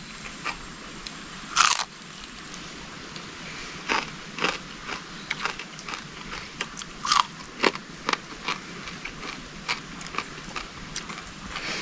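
Close-up biting and chewing of crispy fried and roasted fish: irregular crunches throughout, with two louder bites about one and a half seconds in and about seven seconds in.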